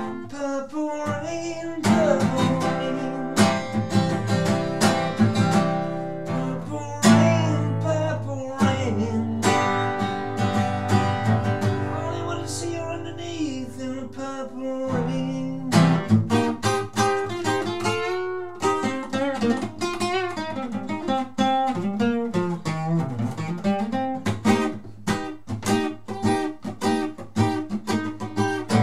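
Acoustic guitar strummed in a steady run of chords, with a voice singing wordlessly over it at times.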